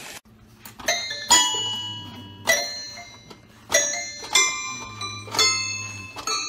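Toy piano pawed by a bulldog puppy: about ten irregular, plunked notes, each with a bright bell-like ring that fades.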